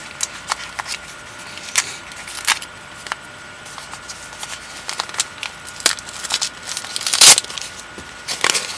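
Packaging being handled while the order's items are unwrapped: scattered small clicks and crinkles, with one louder rustle, like wrapping being pulled or torn, about seven seconds in.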